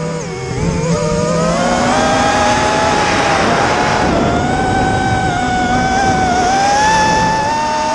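Whine of a radio-controlled FPV model's motors under throttle, its pitch wavering up and down, dipping near the start and climbing again from about two seconds in.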